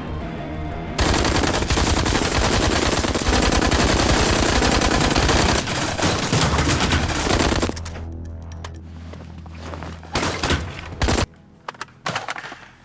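Film sound effects of rapid automatic gunfire: a long, dense stretch of fire starting about a second in and lasting some six seconds, followed by a handful of scattered single shots or impacts, over a steady music bed.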